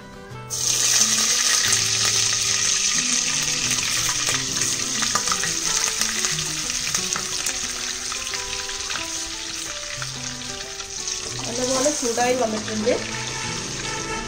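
Butter sizzling as it drops into hot sunflower oil in a stainless steel pressure cooker and melts. The sizzle starts suddenly about half a second in and slowly dies down.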